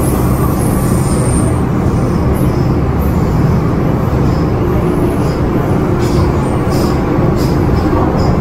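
MTR M-Train electric multiple unit running in a tunnel, heard from inside the carriage: a steady rumble of wheels, motors and car body. Light clicks and rattles come in over the rumble in the second half.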